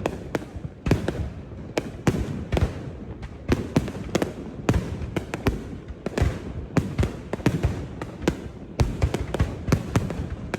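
Fireworks display: shells bursting in a rapid, irregular string of sharp bangs, several a second, over a continuous low rumble.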